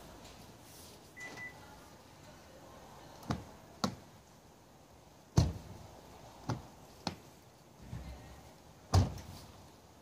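A short electronic beep from the car's alarm about a second in, then a string of sharp clicks and heavier thuds from the Kia K9 sedan's door lock actuators and latches, the two loudest thuds about five and a half and nine seconds in.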